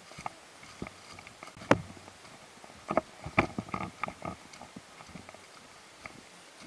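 Footsteps on a path strewn with fallen branches and leaves: irregular crunches and twig snaps. The loudest is a single sharp snap near the two-second mark, and a quick run of steps follows about a second later.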